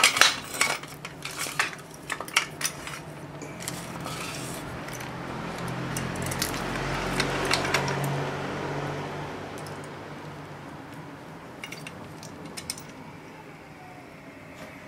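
Metal clicks and clinks from a drill-press stand and its steel lever being handled and moved, thickest in the first few seconds. In the middle a broad rushing noise swells and fades.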